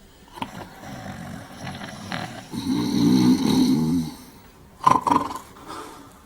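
Two men snoring loudly in turn, rasping and low, with the longest and loudest snore just past the middle. Near the end come two short, sharp snorts.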